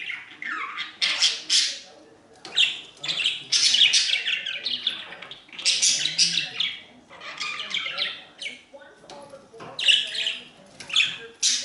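Pet budgerigars chirping and squawking in short, irregular bursts of high-pitched chatter.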